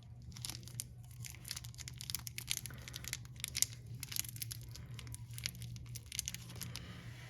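Faint, irregular small clicks and rustles of hands working a motorcycle chain's master link, fitting greased O-rings onto its pins, over a low steady hum.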